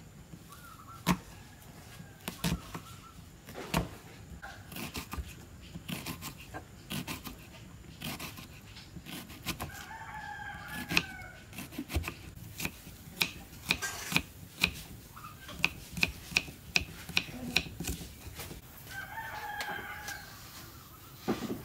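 Small kitchen knife chopping an onion on a wooden chopping board: sharp, irregular taps of the blade on the wood, coming faster and more evenly in the second half. Chickens call a few times in the background.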